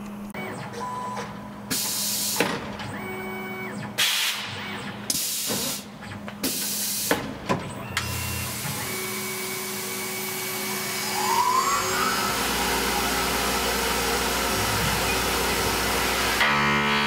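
Tormach PCNC mill: several short bursts of hiss, then a brief rising whine about two-thirds in as the spindle spins up, settling into a steady running noise with a low hum. A buzzing hum comes in near the end.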